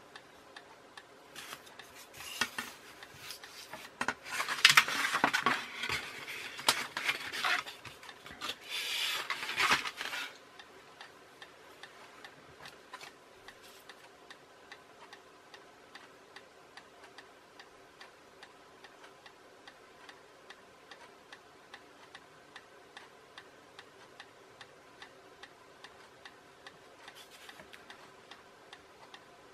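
Scraping and rubbing of a craft knife and steel ruler on foam plates, loudest between about two and ten seconds in, then stopping. A steady ticking, about two ticks a second, runs on through the rest.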